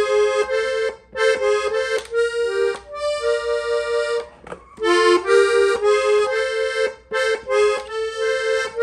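Hohner three-row diatonic button accordion tuned in F, played on the treble buttons: a melodic ornament of quick notes moving between a few neighbouring pitches, in short phrases with brief pauses between them.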